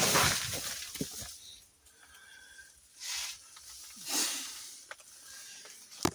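Scuffing and rustling of someone crawling over a crawlspace floor, then two short hissing bursts about three and four seconds in and a sharp click near the end.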